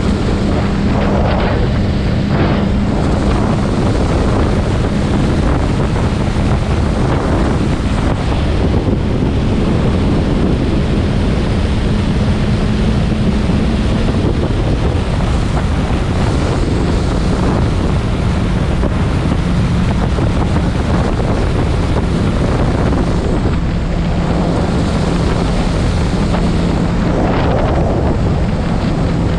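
Wind rushing over the microphone of a camera mounted on a motorcycle at highway speed, over the steady hum of the motorcycle's engine.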